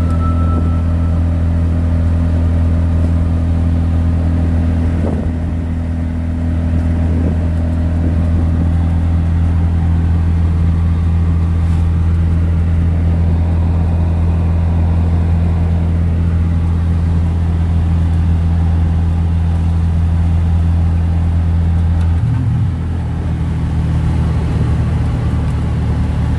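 A vehicle's engine running steadily while driving, heard from inside the cabin as a low, even hum. About 22 seconds in the engine note shifts and briefly dips, then carries on.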